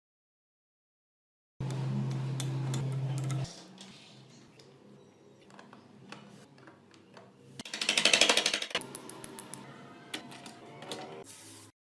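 Small metal mechanism clicking and ratcheting, with a steady low hum for about two seconds after it cuts in and a louder rapid rattle about eight seconds in.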